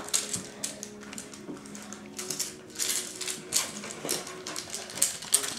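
Standard poodle puppies playing with rope and fabric toys on a hard floor: scattered light clicks, scuffs and rustles of paws and toys.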